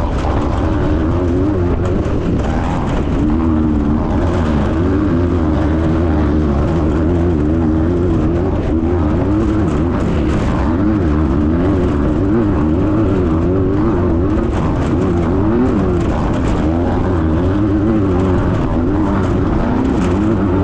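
A Class 9 off-road buggy's air-cooled Volkswagen flat-four engine running hard at race speed. Its pitch wavers up and down every second or so as the revs rise and fall, over a steady low rumble.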